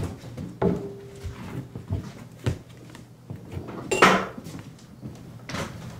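A few scattered wooden knocks and clatters, the loudest about four seconds in. They come from performers moving about and handling props on a wooden stage floor.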